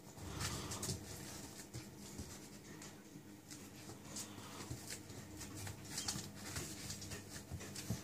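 A Staffordshire bull terrier puppy's paws scrabbling and scuffing on a disposable puppy training pad as it spins chasing its tail, in quick irregular scratchy bursts.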